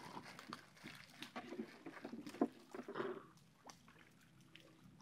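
Faint, scattered knocks and clicks aboard a small wooden boat on the water. Most fall in the first three seconds, then it goes almost quiet.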